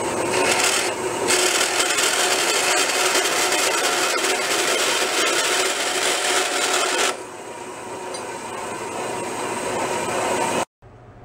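Vertical metal-cutting bandsaw slicing through a thin sheet-steel bracket, a steady hissing rasp with a brief let-up about a second in. About seven seconds in it drops to a quieter, duller running sound, and it cuts off suddenly near the end.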